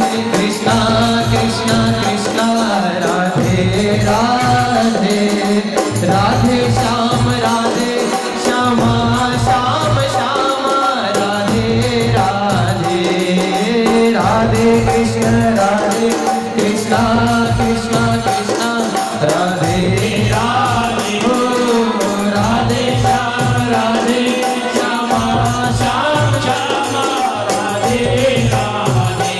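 Live Rajasthani devotional bhajan music: a sung melody over dholak, keyboard and octopad percussion, with a steady dance beat.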